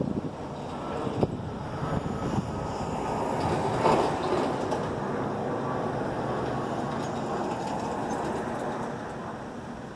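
Freight train rolling slowly over the rails, a steady rumble of wheels and cars that eases off slightly near the end.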